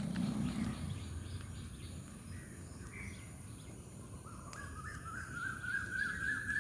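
Quiet outdoor ambience with a bird calling: one long call, rising slightly in pitch, from about four seconds in. A low rumble fades out within the first second.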